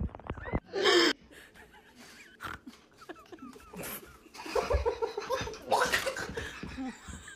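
People laughing, mostly in the second half, where it grows louder.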